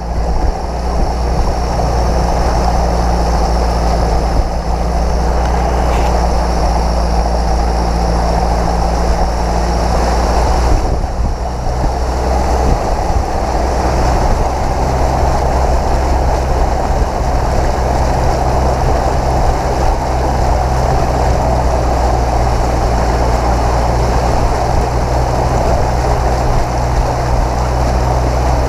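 A 4x4's engine running steadily as the vehicle wades through deep flood water, with the bow wave rushing and splashing along the vehicle's side close to the microphone. The engine note shifts a little lower about halfway through.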